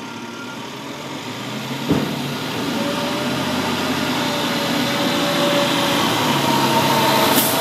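International WorkStar garbage truck's diesel engine running as the truck pulls off and drives closer, growing steadily louder, with a single clunk about two seconds in.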